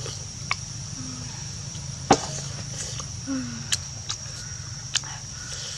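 Mouth sounds of a person eating fried chicken by hand: a few sharp clicks and smacks, the loudest about two seconds in, over a steady high whine and a low hum.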